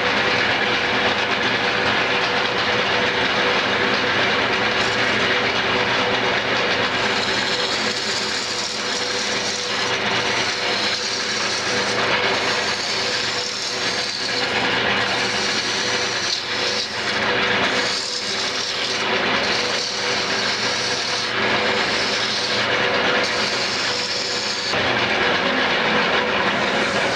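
Small roughing gouge cutting a spinning cherry-and-maple spindle blank on a wood lathe: a steady rough shaving hiss over the hum of the running lathe. The cutting eases off near the end while the lathe keeps spinning.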